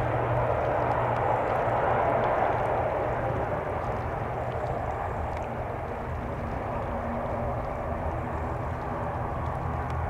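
ATR 72-600 twin turboprop airliner rolling along the runway: a steady engine and propeller drone over a low hum, slowly fading.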